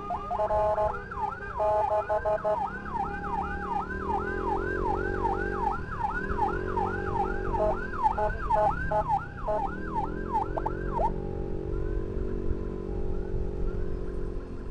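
Emergency sirens from an ambulance escort convoy. A fast yelp sweeps up and down about two and a half times a second, then cuts off about eleven seconds in, over a slower, lower wail that rises and falls. Motorcycle engine and road noise run underneath.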